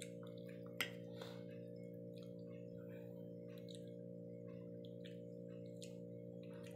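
Soft eating sounds: chewing and light clicks of a fork and spoon on a plate, with one sharper clink about a second in. A steady low hum runs underneath.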